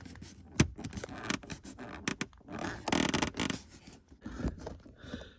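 Hands handling and fitting car interior trim parts: irregular scraping and rustling with clicks, a sharp click about half a second in and a longer, louder scrape around three seconds in.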